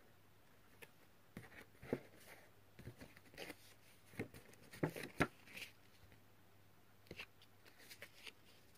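Faint, irregular rustles and light taps from hands handling paper craft materials, with a few sharper clicks about two seconds in and around the middle.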